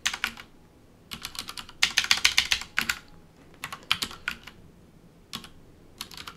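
Typing on a computer keyboard in short bursts of rapid key clicks, with quiet gaps between bursts; the densest run comes about two seconds in.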